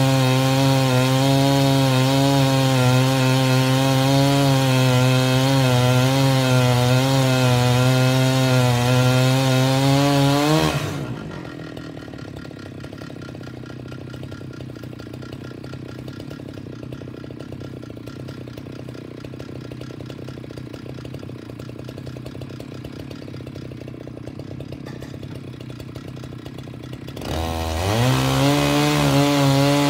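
Large chainsaw on a homemade chainsaw mill with a six-foot bar, running steadily at full throttle through the wood. About a third of the way in it drops to a much quieter low idle, and near the end it revs back up to full speed.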